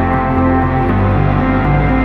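Background music: a steady, ambient soundtrack with sustained tones and a slowly shifting bass line.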